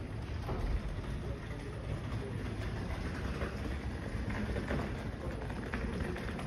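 Outdoor city background noise: a steady low rumble with a few faint taps scattered through the second half.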